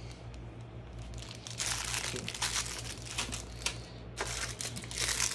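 Plastic bag crinkling in bursts as small board-game pieces are handled, with short crackles and ticks starting about a second and a half in.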